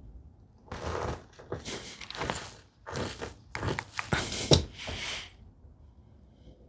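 Hand tools working wood: a series of short scraping strokes with a couple of sharp knocks about four and a half seconds in, then quiet.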